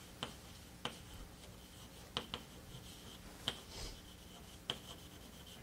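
Faint, irregular small clicks, roughly one a second with an occasional close pair, over a steady low hum.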